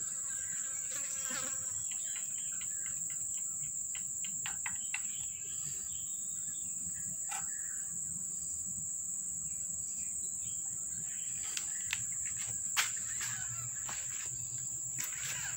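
Insects trilling in a steady high-pitched drone, with a few light clicks scattered through, one sharper click near the end.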